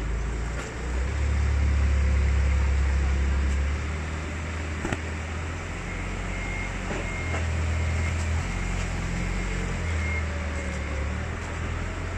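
Rustling of cotton t-shirts being pulled from a pile and held up, with a few sharp clicks, over a low rumble that swells and fades.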